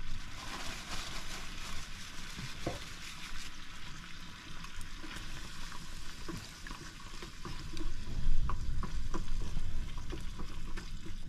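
Prawn and coconut-milk curry sizzling and bubbling in a pan as it is stirred, with a few clicks of the spoon against the pan.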